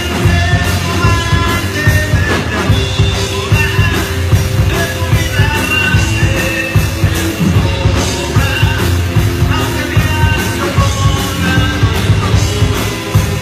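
A live band playing loud music on stage: drum kit, electric guitar and bass, with a singer's voice.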